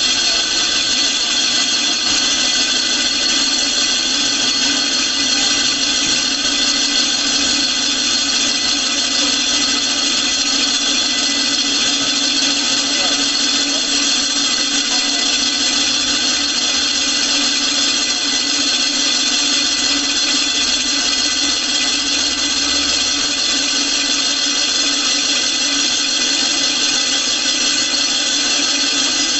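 Gural cheese slicer running with its circular blade being sharpened: the stone grinding on the spinning blade's edge gives a loud, steady, high-pitched squeal over a low motor hum.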